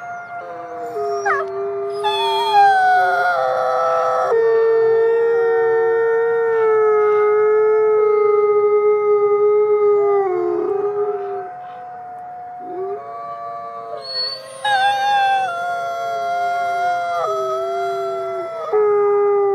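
Female Canadian/Rocky Mountain gray wolf howling: long drawn-out howls one after another, each holding a steady pitch and falling away at its end, with a quieter stretch about midway before a higher howl starts.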